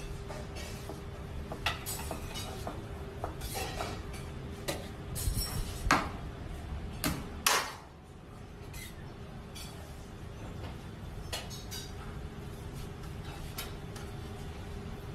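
Knife knocking and tapping against a plastic cutting board as raw meat is sliced, in scattered sharp clicks that come thickest near the middle. A steady low hum runs underneath.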